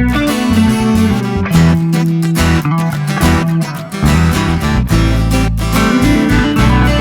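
Background music led by strummed acoustic guitar over a bass line.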